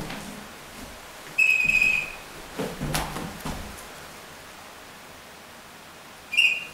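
Electronic beeps at one high pitch: a short beep at the start, a longer beep about a second and a half in, and another short beep near the end, with a few knocks from the device being handled around three seconds in.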